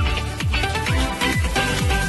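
Background electronic dance music with a steady kick drum, about two beats a second, under a synth melody.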